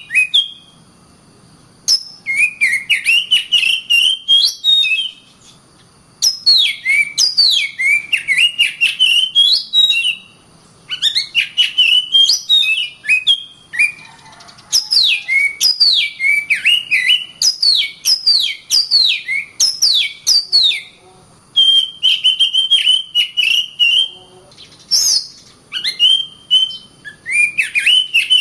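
Oriental magpie-robin (kacer) singing: loud, varied whistled phrases with quick downward-sweeping notes and clicky chatter, delivered in bouts of a few seconds with short pauses between them.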